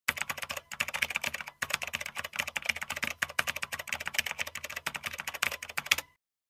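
Rapid keyboard typing clicks, a typing sound effect. It breaks off briefly about half a second and a second and a half in, and stops just before the end.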